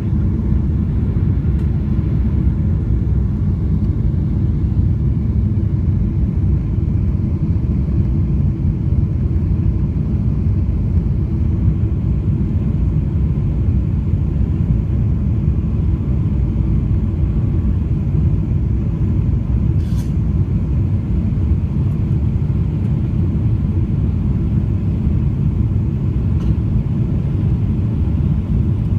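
Steady low rumble of engine and airflow noise inside the cabin of a Boeing 777-300ER with GE90 engines, heard from a window seat beside the wing while the aircraft descends on approach with flaps extended. A faint click comes about twenty seconds in.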